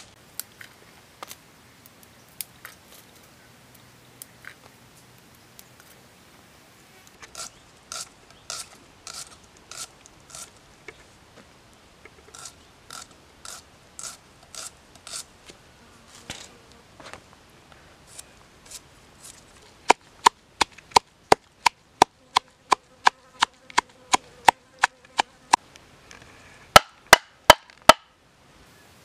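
Kitchen knife cutting food by hand: soft, rhythmic slicing cuts through shallots. Later come much louder, sharp, evenly spaced knocks, about two a second, with a ringing note, as the knife chops green chilies inside a small metal cup; four more knocks come near the end.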